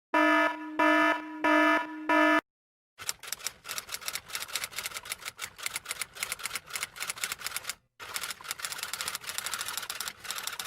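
Four short electronic beeps, then, after a moment's pause, rapid typing: a steady stream of fast key clicks with one brief break in the middle.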